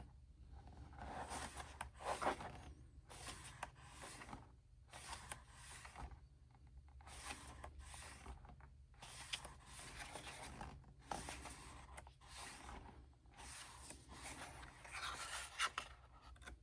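Pages of a K-pop album's photo book being turned and handled, a faint paper rustle and slide every second or two.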